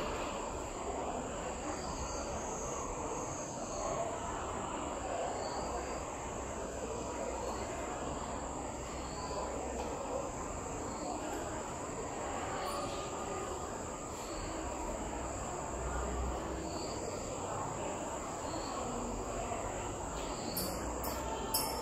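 Steady room noise under a continuous high, thin whine, with a few faint short chirps and no distinct event.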